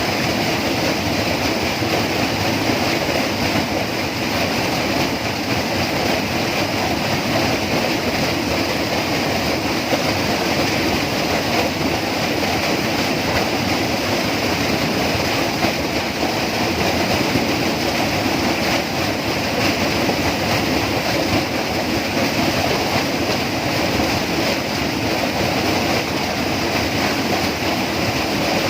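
Tropical rainforest ambience: a loud, steady, unbroken wash of sound with several constant pitched bands running through it and no single events standing out.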